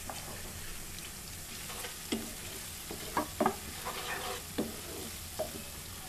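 Onion and spice masala sizzling in ghee and oil in a non-stick pan, stirred with several short scraping strokes against the pan.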